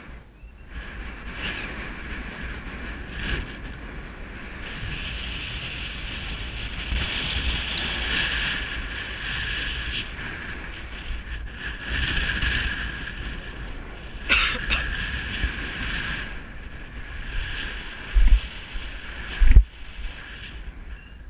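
Wind rushing over the camera microphone, swelling and fading, with a few sharp clicks and some heavy low buffeting thumps from gusts near the end.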